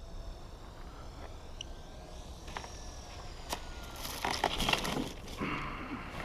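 Electric RC model plane's motor and propeller whining in a gliding pitch as it passes, then a short burst of crunching and crackling about four seconds in, as in a crash into the ground.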